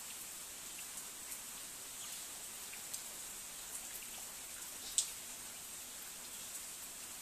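Rain falling on leaves and palm fronds: a steady hiss with scattered single drops striking leaves, the sharpest about five seconds in.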